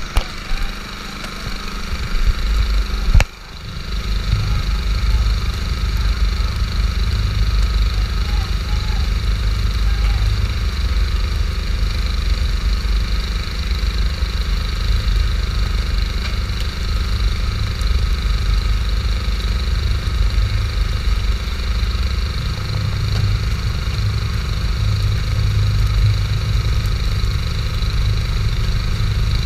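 Fishing boat's engine running with a steady low rumble under a constant hiss. A single sharp knock comes about three seconds in, and the rumble grows louder later on.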